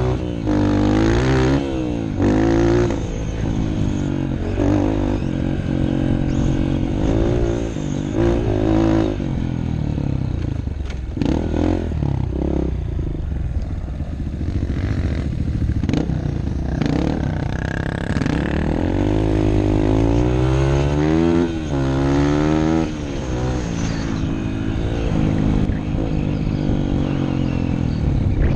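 2003 Honda CRF150F's four-stroke single-cylinder engine under the rider, revving up and dropping back repeatedly as it is throttled and shifted across rough ground. A few sharp knocks come through from the bike about a third and halfway through.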